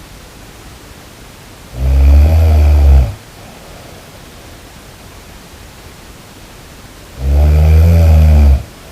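A person snoring: two loud, low, rumbling snores, each a little over a second long and about five seconds apart, over a steady background hiss.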